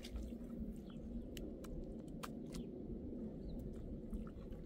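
Hand masonry work on a concrete-block wall: scattered sharp taps and scrapes of mortar being laid on the blocks, over a steady low rumble.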